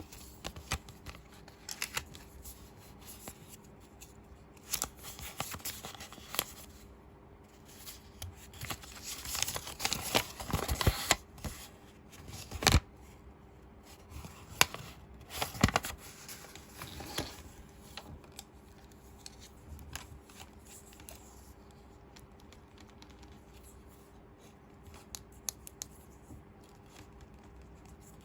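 Hands unboxing a small plastic toy set: packaging rustling and crinkling, with scattered clicks and taps of small plastic pieces. The rustling is busiest about nine to eleven seconds in, and a few sharp clicks stand out shortly after.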